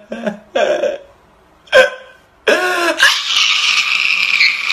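A man crying out loudly: a short sob about two and a half seconds in, then one long, harsh wail from about three seconds in.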